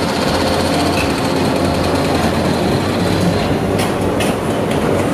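CAT 395F hydraulic excavator's engine running under load while its bucket scrapes and crunches through broken pavement and rubble, with a couple of sharp clanks about four seconds in.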